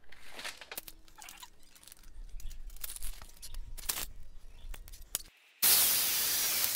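Clicks and rustles of hands handling and marking a wooden strip. After a brief silence about five and a half seconds in, a corded jigsaw starts cutting through the wood, loud and steady.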